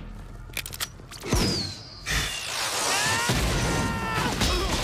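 Cartoon battle sound effects over music. About a second in there is a sharp hit with a short falling whistle, followed by a long loud blast with several falling whines in it as a robot is knocked through the air.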